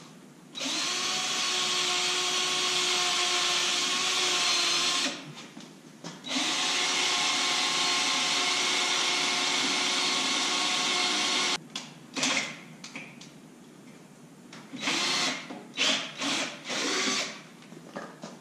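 Handheld power drill boring pilot holes through a truck's filler panel. There are two long runs of steady motor whine, each about five seconds, with a short pause between them, then several short bursts near the end.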